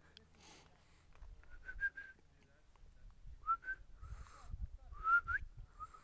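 Four short, soft whistled notes, some held level and some gliding upward, over a faint low rumble.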